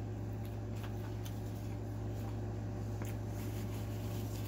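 Soft close-up chewing of a mouthful of food, with a few faint scattered mouth clicks, over a steady low hum.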